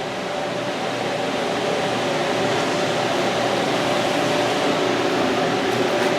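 A steady machine hum with a constant tone, like a fan or motor running, growing a little louder over the first couple of seconds and then holding.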